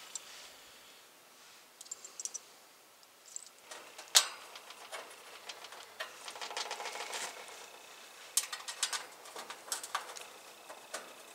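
Scattered light clicks, taps and rattles of a heat pump condenser's sheet-metal cabinet panels being fitted back into place, with one sharper knock about four seconds in.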